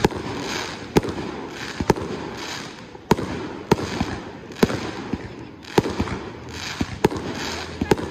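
Fireworks display going off: sharp bangs about once a second, with a continuous rumble between them.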